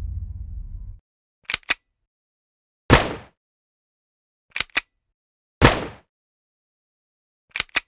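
A low rumble fades out in the first second. Then a pistol sound effect repeats: two quick sharp clicks followed about a second later by a single gunshot with a short tail, twice, with a third pair of clicks near the end.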